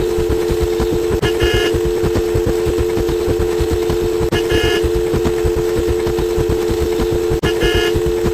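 Looped horn-like sound effect: a steady two-note blare held over a dense low rumble, with a short higher beep and a tiny break repeating about every three seconds as the loop restarts.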